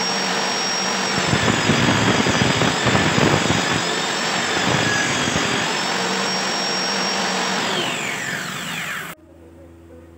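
Table saw running with a steady high whine, louder and rougher while a thin strip of wood is ripped from about one to five seconds in; near the end the whine falls as the saw is switched off and winds down, and the sound cuts off suddenly.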